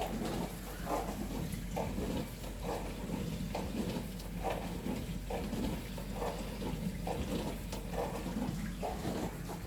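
Dishwasher running, water splashing and sloshing inside in irregular short bursts over a steady low hum.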